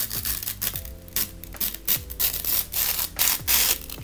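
Plastic packaging rustling and crinkling as an item is unwrapped and handled, a quick irregular run of rubs and scrapes.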